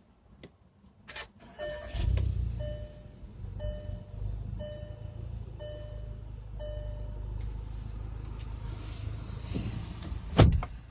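2015 Volkswagen Golf GTI's 2.0-litre turbocharged four-cylinder started by push button: a click, then the engine catches with a brief flare in revs and settles to a steady idle. A dashboard chime repeats evenly, a little more than once a second, for about six seconds. Near the end a power window runs and stops with a thump.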